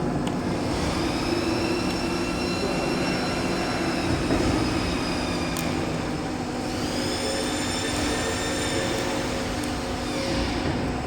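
CNC cutting machine running as it cuts snowboard base sheet: a steady hum with high motor whines that rise as the cutting head speeds up and fall away as it slows, twice.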